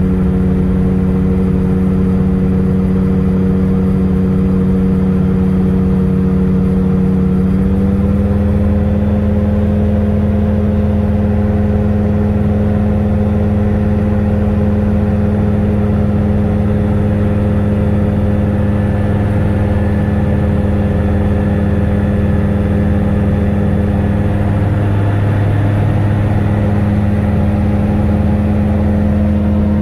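Gyrocopter's piston engine and pusher propeller droning steadily in flight; the pitch steps up slightly about eight seconds in.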